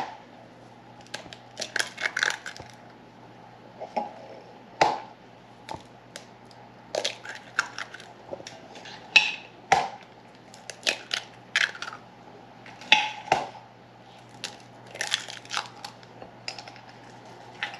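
Raw eggs being cracked one after another over a glass mixing bowl: clusters of sharp taps and crunching eggshell every second or two.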